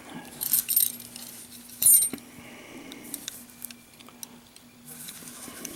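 Heavy hardened-steel padlock handled and set down: a few sharp metallic clinks and clanks, the loudest about two seconds in, over a faint steady hum.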